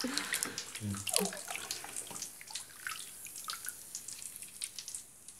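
Bath water disturbed by a hand: light splashing, trickles and scattered drips.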